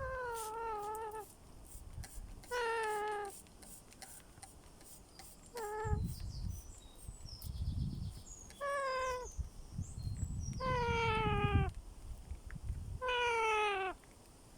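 Baby parrot calling: six drawn-out, whiny calls of up to about a second each, every one falling slightly in pitch, spaced one to three seconds apart. A low rumble runs between the calls.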